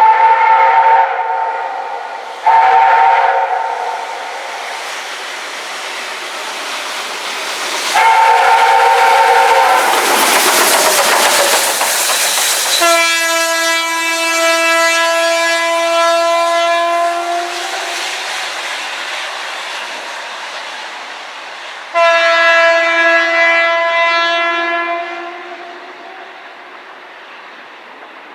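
P36 steam locomotive passing, sounding three short blasts of its whistle, each a chord of several tones. A loud hiss follows, then a long blast and a shorter one from its loud horn, over the rumble and clickety-clack of the train rolling.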